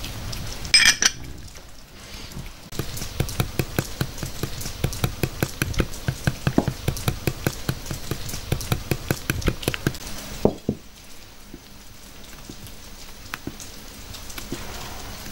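A brief sharp clatter, then a fast, regular run of knocks, about five a second, lasting some seven seconds and stopping about ten seconds in.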